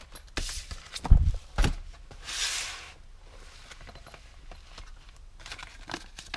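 Hobby supplies being handled and set down on a table: a couple of knocks and a heavier thump about a second in, a short rustle of packaging around two and a half seconds in, and a few light clicks near the end.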